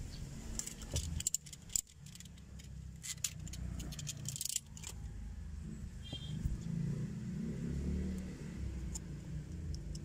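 Electrical tape being pulled off the roll and wrapped around car wiring: a run of sharp crackling clicks through the first five seconds, over a low steady rumble.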